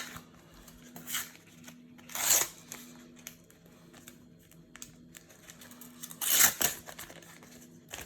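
Paper sticker cards being handled and slid over one another: a few brief papery swishes and rustles, the loudest about two seconds in and again a little past six seconds.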